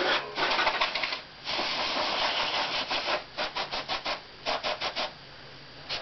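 Aerosol dust-remover can spraying through its straw: two long hissing blasts, then runs of short rapid puffs, about six a second.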